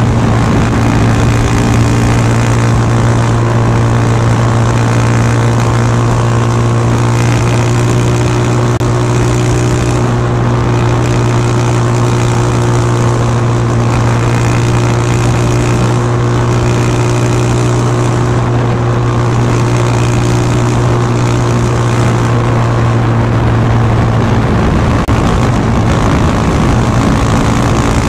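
KTM Duke 390's single-cylinder engine running through a Remus S-Flow slip-on exhaust with its silencer insert fitted, heard close to the muffler while riding. It holds a steady engine speed, and the note shifts near the end.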